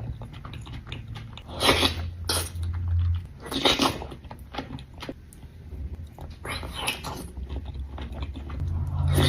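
A person eating close to the microphone: chewing and biting, with a few short, louder mouth sounds every second or two.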